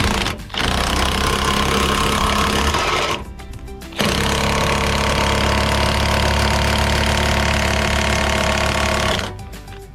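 Impact wrench run on a wheel's lug nuts in two long bursts of rapid hammering, about three seconds and then about five seconds, with a short pause between.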